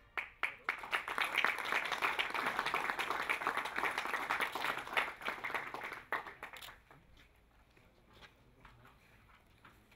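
Audience applauding: clapping starts straight away, holds steady for about six seconds, then dies away to a few scattered claps.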